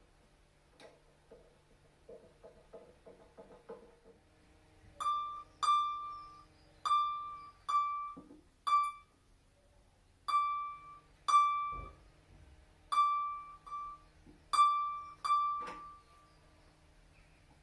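A high string on a Musicmakers Jolie lever harp is plucked about a dozen times at the same pitch, each note ringing briefly and dying away. Light clicks of the screwdriver on the lever hardware come before the plucking, and there is one dull knock midway through. The string's tuning is being checked while its Camac sharping lever is regulated to give the semitone change.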